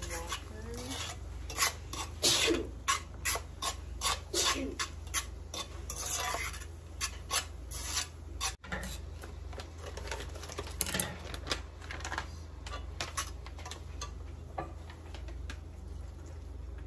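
Metal spoon scraping and clinking against a skillet as thick instant mashed potato is stirred and mashed, in irregular strokes that are busiest in the first half.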